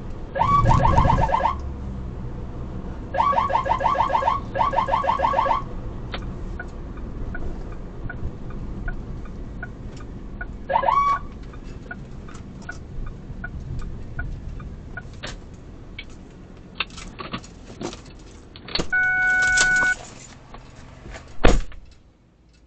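Car-mounted electronic emergency siren, the 'NYPD Scientific Prototype Mark 7', sounded in short bursts of rapid pulsing tones: three bursts in the first six seconds and a brief chirp about eleven seconds in, with a steady horn-like tone for about a second near the end. Between them a regular ticking runs over the car's steady cabin noise, and a loud knock comes just before the sound drops away.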